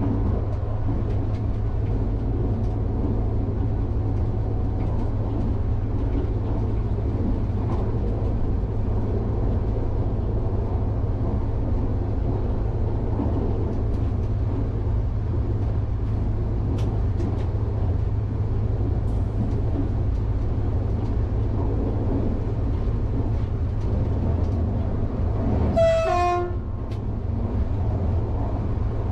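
SNCF AGC railcar heard from its cab, running at speed with a steady rolling rumble and low hum as it accelerates to about 115 km/h. About three-quarters of the way through there is one short train-horn toot, around the time an oncoming train crosses.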